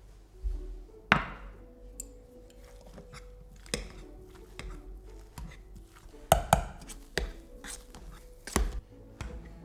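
Kitchen knife chopping on a cutting board: a handful of sharp, irregularly spaced knocks, two of them close together about two-thirds of the way through.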